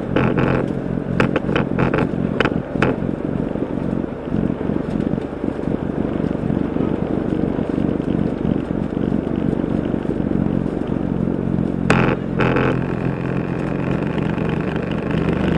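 Road and engine noise heard from inside a moving car, a steady rumble, with a few short sharp sounds near the start and two brief louder sounds about twelve seconds in.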